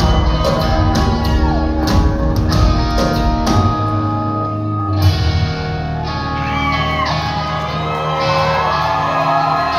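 A live rock band playing in a large hall, heard from the audience: drums and bass under electric guitar, with the drums stopping about five seconds in and sustained guitar with sliding notes carrying on. Shouts come from the crowd.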